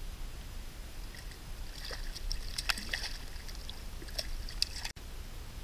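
Water sloshing at a kayak's side over a steady low rumble, with a scatter of small splashes and clicks as a hooked sea robin is handled at the surface. The sound cuts out for an instant near the end.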